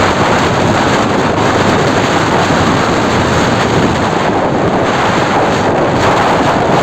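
Stormy sea and strong wind: a loud, steady wash of noise from rough surf, with wind buffeting the microphone.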